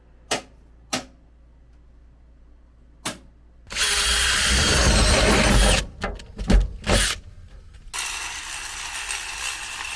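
A handheld power drill/driver running in two bursts of about two seconds each, as panel screws are driven. A few sharp clicks come before the first burst, and a handful of knocks fall between the two.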